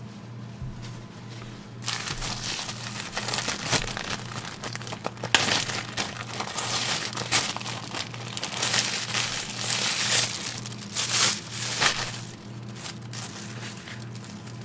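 Clear plastic deli bag and its wrapping crinkling and rustling as hands open it and handle what is inside. The crinkling starts about two seconds in, comes in irregular bursts, and dies down near the end, over a steady low hum.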